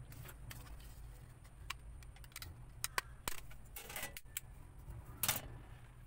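A plastic wall switch and insulated wires being handled at a plastic utility box: scattered light clicks and rustles, with sharper clicks about three seconds in and the loudest rustling clatter about five seconds in.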